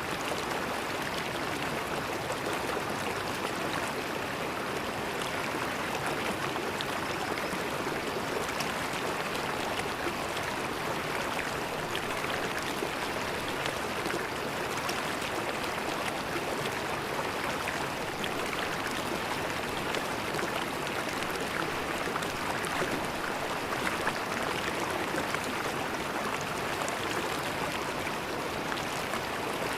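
River water flowing steadily over stones, a continuous gurgling rush with fine splashes throughout.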